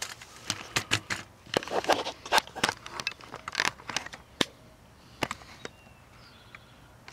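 Camera handling noise and rustling corn leaves: a run of irregular sharp crackles and scrapes for about five seconds, then quieter, with a couple of faint high chirps near the end.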